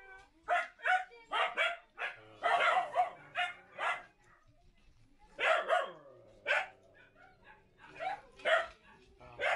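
Dogs barking: short, sharp barks and yaps in quick clusters, with a couple of brief pauses between them.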